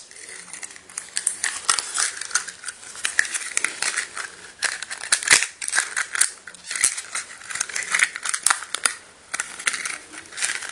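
Light plastic clicks, taps and scrapes, irregular and many, of hands working the plastic canopy back onto a small WLToys V911 RC helicopter.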